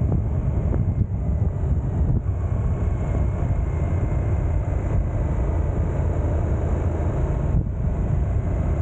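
Suzuki GSX-8S parallel-twin motorcycle engine running under way while the bike slows and shifts down from fourth to third gear, mixed with steady wind rumble on the microphone.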